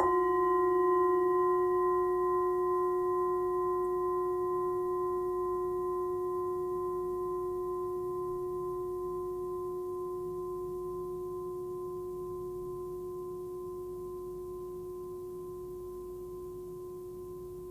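Forged Tibetan singing bowl, 14 cm across and tuned to F sharp (about 363 Hz), struck once and left to ring. Its tone and several higher overtones fade slowly.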